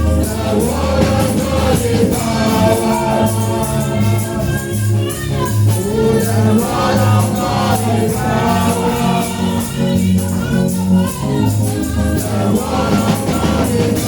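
Gospel praise music with a steady beat and a bass line, with voices singing along.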